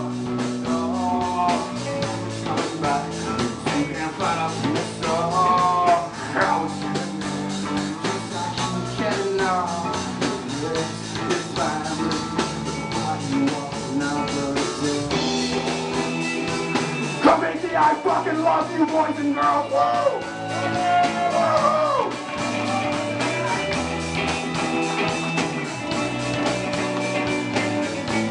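Punk rock band playing live and loud: electric guitars, bass guitar and drum kit, with bending lead lines over a steady driving beat.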